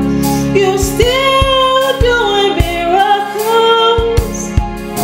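A woman singing a gospel worship song, her voice sliding and bending between notes over an instrumental backing of held chords with a steady beat.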